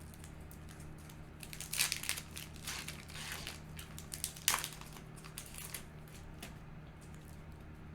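Yu-Gi-Oh! booster pack's foil wrapper crinkling as it is handled and opened, in irregular bursts between about two and five seconds in, with a sharper crackle near the middle.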